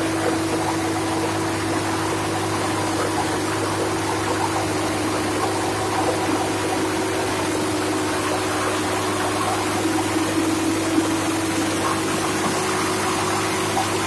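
PRD crawler drilling rig running steadily, its engine and pumps making an even, unbroken drone with a low hum, and one brief knock about eleven seconds in.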